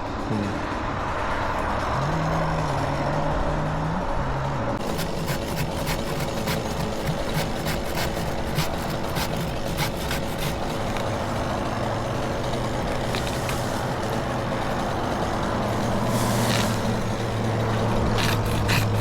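A large engine running steadily, its pitch shifting briefly a couple of seconds in, with a scatter of short clicks and knocks from about five seconds on.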